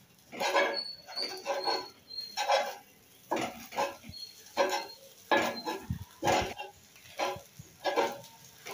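Metal spatula chopping and scraping through an omelette on a cast-iron tawa: over a dozen strokes at a fairly even pace, about one every half second to second.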